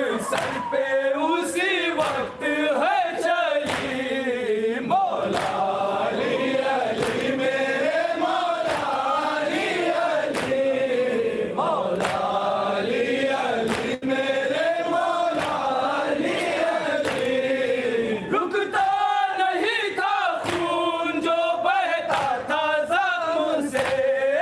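A crowd of men chanting a mourning lament (noha) together in a slow, drawn-out melody, with sharp beats scattered through it.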